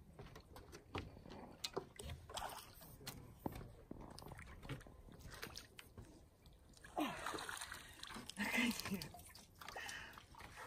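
Small hooked carp splashing and thrashing at the water surface as it is played on a pole rod, with irregular water sloshes. A short spell of voice about seven seconds in.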